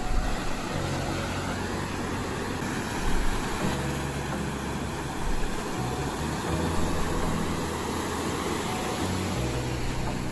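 Steady rush of breaking ocean surf with a low rumble, under faint background music whose low notes come and go every second or two.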